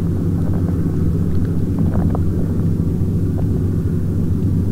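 A steady, low engine-like drone that holds one even pitch, with a few faint ticks.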